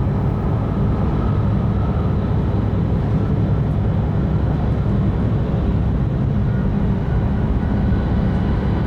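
Steady low rumble of a Tohoku Shinkansen train running at speed, heard from inside the passenger cabin, with a few faint steady tones over it.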